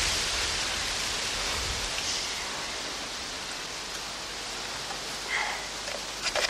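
A steady hiss that slowly fades, with a few faint short clicks near the end.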